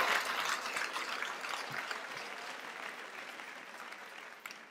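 Congregation applauding, gradually dying away.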